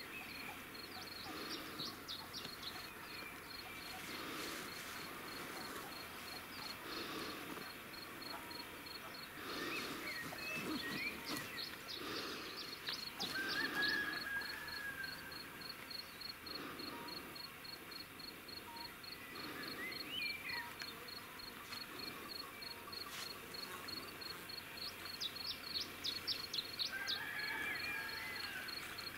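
Quiet countryside ambience: an insect chirping high and steadily, a few times a second, with small birds calling and giving short trills now and then.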